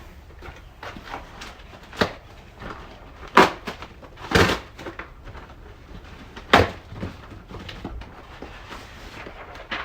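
Scattered knocks and clatter of toy boxes and plastic toy parts being handled, with a few sharper knocks about 2, 3.5 and 6.5 seconds in and a longer scrape-like rustle about halfway through.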